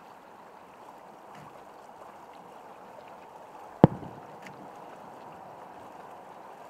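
A single sharp firework boom about four seconds in, with a short echoing tail, over a steady background hiss.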